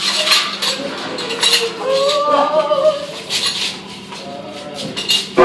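Haunted-house attraction ambience: scattered knocks and rattles, with a wordless moaning or wailing voice around the middle over a steady low hum. Loud music cuts in right at the end.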